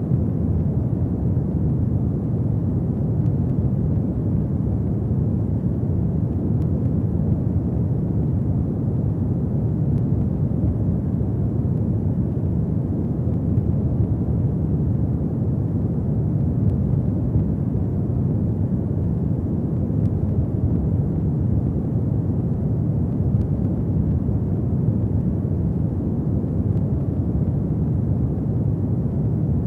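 Fireplace fire burning with a steady low rumble and a few faint crackles.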